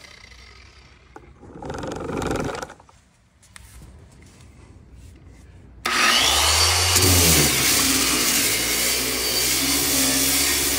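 Harbor Freight Bauer 6-inch electric DA sander, its orbital bearing welded so the pad spins eccentrically without free orbit, switching on about six seconds in with a rising whine. It then runs steadily with 36-grit paper grinding factory lacquer paint off a car's steel fender. A brief burst of noise comes about two seconds in.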